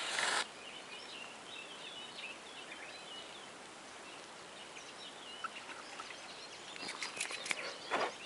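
A wooden safety match flaring into flame with a short hiss just after being struck on the matchbox striker. Small birds chirp in the background while it burns, with a few light clicks and a brief rustle near the end.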